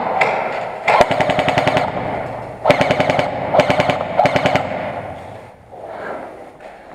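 Airsoft guns firing several rapid full-auto bursts of clicking shots, the longest about a second in, then three shorter bursts over the next two seconds.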